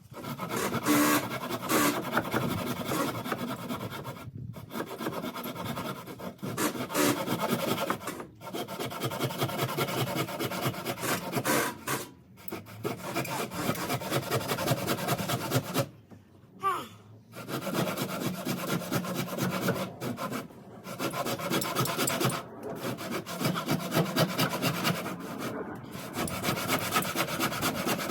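Hand saw cutting through a timber joist, a steady run of fast back-and-forth strokes with several short pauses.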